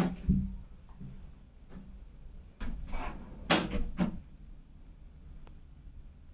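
A series of knocks and thumps, like something being bumped or handled: two at the start, then a quick cluster of four or five in the middle, and one light click near the end.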